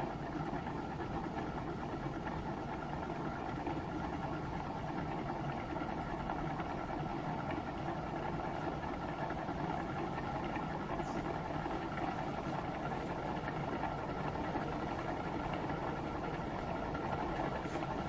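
Small gamma-type Stirling engine running steadily, a continuous even mechanical sound with no change in speed.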